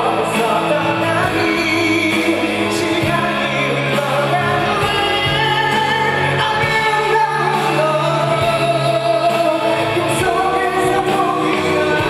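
A male vocalist singing a ballad live into a handheld microphone with instrumental accompaniment. He holds long notes over sustained low notes from the backing.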